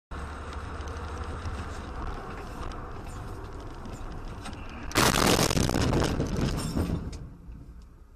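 A car driving with steady road and engine noise, then a loud collision about five seconds in that dies away over about two seconds.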